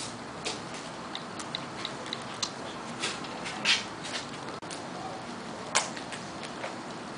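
Irregular small ticks and clicks of a hand-poke tattoo needle pricking ink into skin, a couple of them sharper, over a steady hiss.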